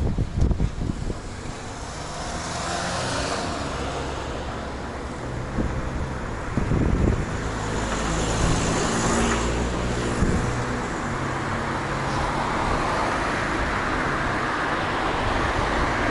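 Street traffic: motor vehicle engines running and cars going by, with wind buffeting the microphone of a camera on a moving bicycle. There are a few sharp knocks and rattles about a second in and again around seven seconds.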